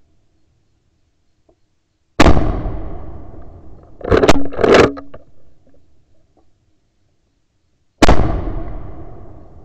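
Two rifle shots from a Blaser R8 straight-pull rifle, about six seconds apart, each trailing off in a long echo. Between them come two sharp metallic clacks about half a second apart, the straight-pull bolt being cycled back and forward to chamber the next round.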